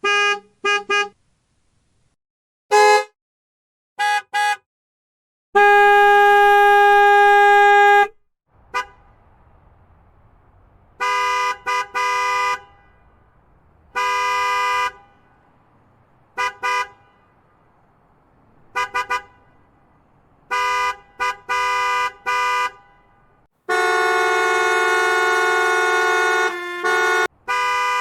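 A string of car horn honks of many kinds: quick single, double and triple beeps and longer held blasts, one lasting about two and a half seconds about a quarter of the way in and another about three seconds long near the end. Some horns sound two notes at once, as a dual-tone horn does.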